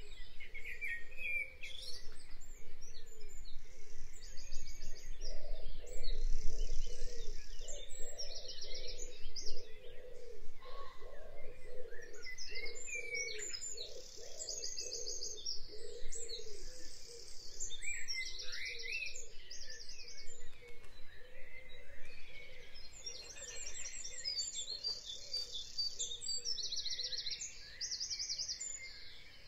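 Birds chirping, with short high trills repeating every few seconds, over steady background noise.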